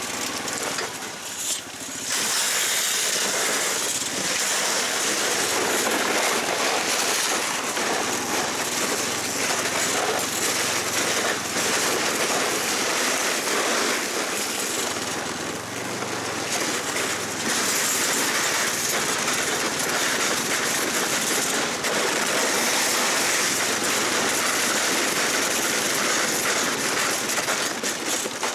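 Tofalar 500 Long motorized snow tow running under way, its engine and track noise mixed with a steady rush of wind. It grows louder about two seconds in and then holds loud and even.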